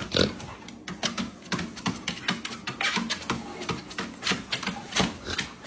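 A dog's paws and claws tapping and scuffing on the moving belt of a walking-pad treadmill, a quick, uneven patter of clicks several times a second as it shuffles to keep its footing.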